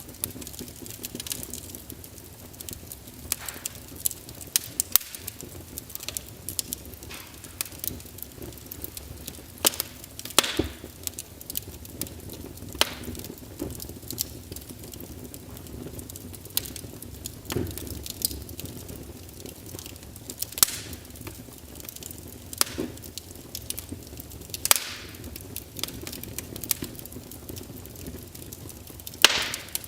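Wood fire burning in a fireplace: irregular crackling and sharp pops over a low, steady sound of the flames, with a handful of louder pops scattered through.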